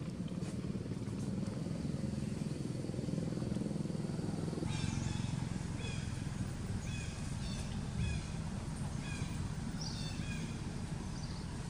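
Baby macaque giving a run of short, high-pitched squealing cries, about one every half second to a second, starting about five seconds in, over a steady low rumble.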